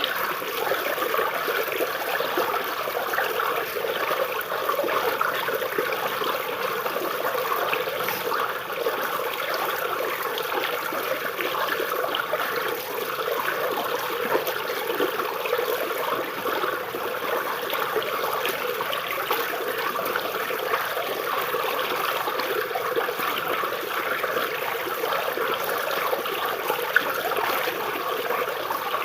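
Small river water flowing and trickling steadily over and under tree roots, a continuous babbling.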